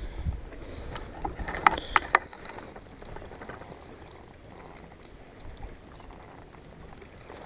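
Water splashing and a few sharp knocks close together about two seconds in, as a largemouth bass is held in the water beside a kayak for release, then faint lapping water.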